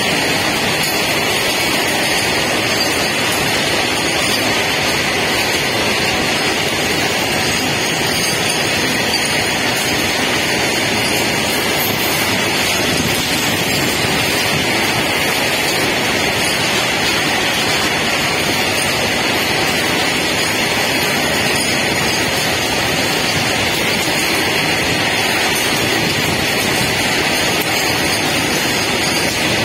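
Loaded BOXNHL open coal wagons of a freight train rolling past close by: a steady, unbroken rush of wheels on rail.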